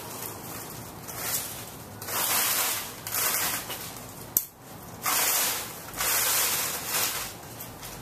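Wind noise on the microphone: irregular whooshing gusts, each about a second long, with one sharp click about four and a half seconds in.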